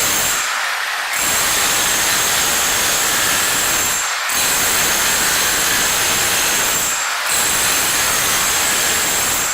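Bauer SDS rotary hammer in chisel mode, driving a 4-inch-wide welded chisel scraper through thinset on a concrete floor. The hammering runs in long stretches, stopping briefly about half a second in, about four seconds in and about seven seconds in.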